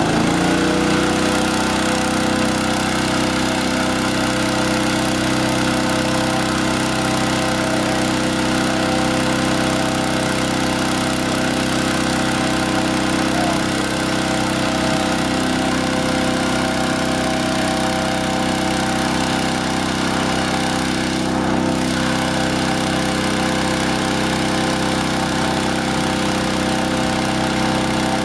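Petrol-engine inflator fan running steadily, blowing air into a hot-air balloon envelope during cold inflation. It settles at speed in the first moment and then holds an even, unchanging engine hum.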